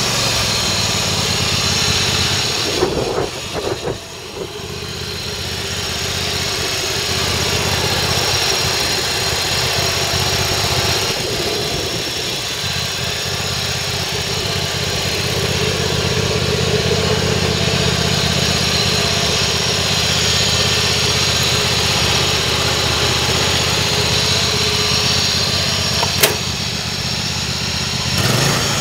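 John Deere 285 lawn tractor engine running steadily, its level dropping briefly about four seconds in before it settles again. A single sharp click sounds near the end.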